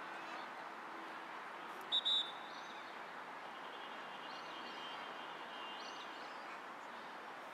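Two short, sharp blasts of a referee's whistle about two seconds in, over a steady hiss of open-air wind and ambient noise on the pitch.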